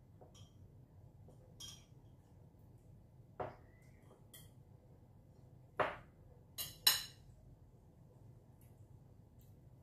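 Metal cutlery clinking and tapping against a ceramic plate while eating, a handful of sharp clinks with the loudest two about six and seven seconds in.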